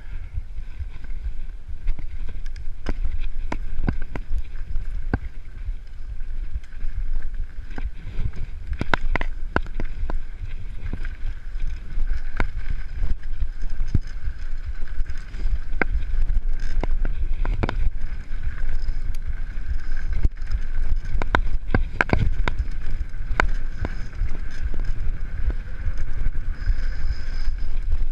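Mountain bike ridden fast down a dirt forest trail, heard from a camera on the bike: low wind rumble on the microphone, with frequent sharp clicks and rattles as the bike jolts over bumps, over a steady faint high buzz.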